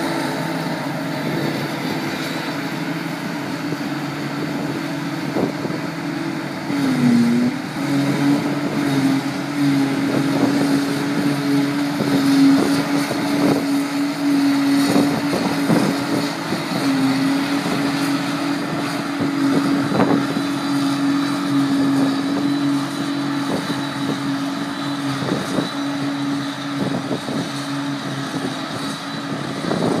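Claas Jaguar self-propelled forage harvester working, chopping grass for silage, its engine a loud steady drone that dips briefly in pitch about seven seconds in, with crackling noise over it.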